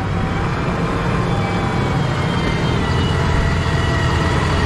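Heavy diesel engine running steadily, a faint high whine over its rumble, growing slightly louder.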